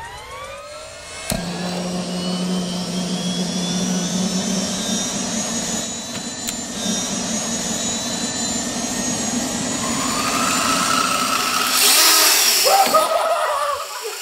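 Brushed electric motor of a cordless Dremel rotary tool spinning a helicopter rotor: a whirring whine whose pitch climbs slowly, joined about a second in by a lower steady hum. Near the end a louder rush of rotor air noise comes in.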